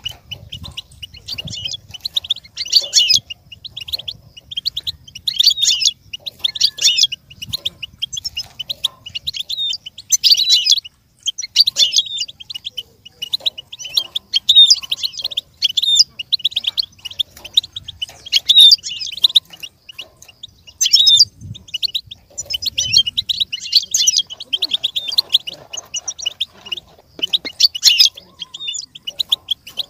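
European goldfinch singing: rapid, high twittering phrases of one to two seconds, one after another with short breaks.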